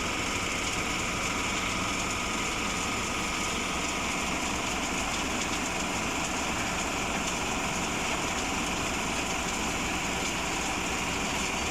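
EK-18 wheeled excavator's diesel engine running steadily while it works, with an even, unbroken drone and no distinct knocks or changes.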